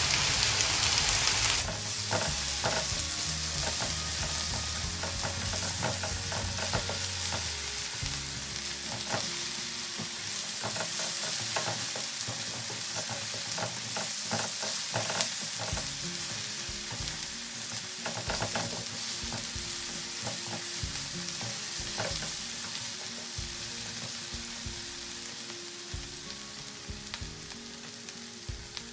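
Diced potatoes sizzling as they fry in oil in a nonstick frying pan. A wooden spatula scrapes against the pan now and then as they are stirred.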